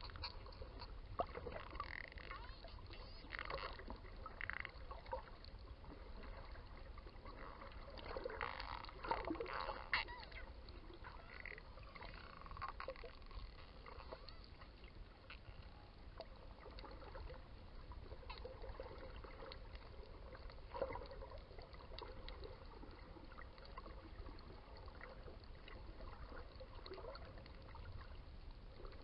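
Dolphins' clicks and short squeaky calls heard underwater, coming in scattered bursts and busiest about a third of the way in, over a low rumble of water against the microphone.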